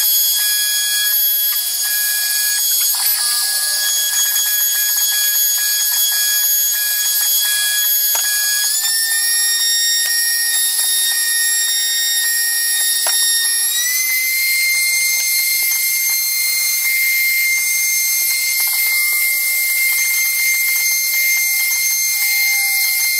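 CNC router spindle whining steadily as its end mill cuts a pocket in a board, the sound sped up fourfold with the footage. The high whine steps up in pitch twice, about nine and about fourteen seconds in.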